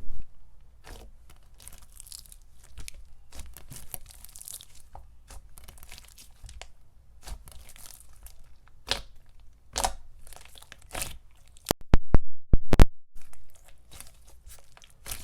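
Glossy, thick slime with large and small foam balls being squished and stretched by hand, making irregular crackles and pops as the beads and slime are pressed. The loudest pops come in a quick cluster a few seconds before the end.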